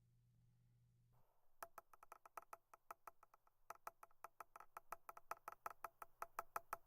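Faint, rapid tapping of a pen on a desk, about five taps a second with a short pause, starting about a second in out of near silence.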